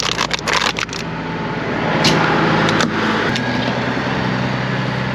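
A car engine idling steadily, with crackling and scraping as trash is gathered out of the vehicle: a quick run of sharp clicks in the first second and a louder rustle about two seconds in.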